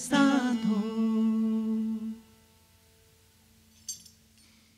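The last sung note of a devotional folk song, held steady by the singers, ends about two seconds in. A faint ringing tone dies away after it, and there is one short light clink near the end.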